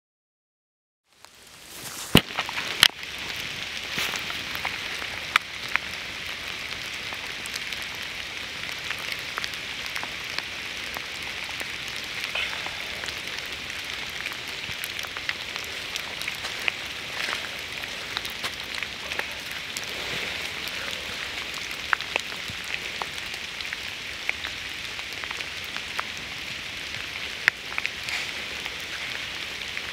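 Steady outdoor hiss sprinkled with many sharp clicks and taps, starting abruptly about a second in; a few loud knocks come near the start.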